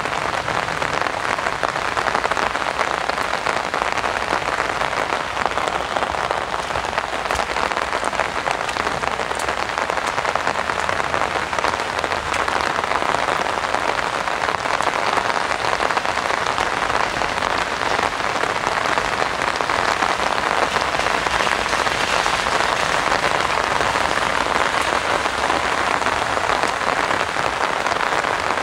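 Heavy rain falling steadily on an open umbrella overhead and on the ground around it.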